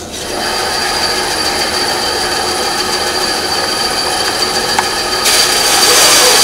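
TOTAL benchtop band saw switched on, its motor and blade starting suddenly and settling into a steady run with a whine. About five seconds in, the blade starts cutting into a thick wooden block, adding louder, higher sawing noise.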